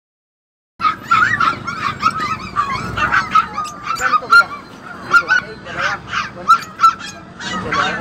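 Lovebirds in a cage chattering: many short, overlapping squawks and chirps, several a second, starting just under a second in.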